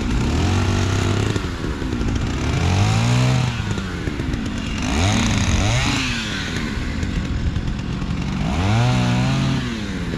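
Chainsaws revving up and dropping back again and again, more than one saw running at once.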